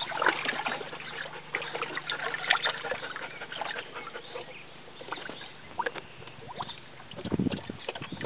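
Water splashing and sloshing in a small plastic tub as a Beauceron dog noses and mouths at a floating ball. The splashes come thick at first, thin out, then there is a heavier slosh near the end.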